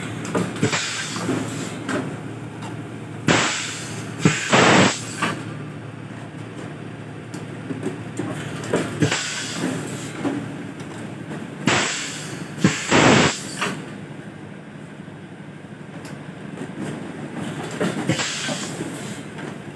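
Semi-automatic PET bottle blow moulding machine at work: short bursts of compressed-air hiss from its pneumatic mould and blowing cycle come every few seconds, some in pairs. Between them are light clicks and the clatter of plastic preforms and bottles being handled.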